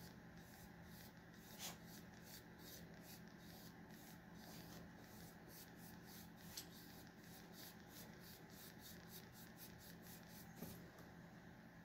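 Faint, quick swishes of a nearly dry chip brush's bristles dragged lightly back and forth across a painted wooden board, about three to four strokes a second, with a couple of sharper ticks: feather-light dry-brushing.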